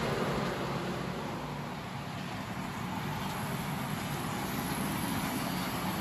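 Steady running noise of an HO scale model layout: the small electric motors and wheels of model vehicles and trains, with a continuous low rumble. It eases a little in the first couple of seconds, then holds steady.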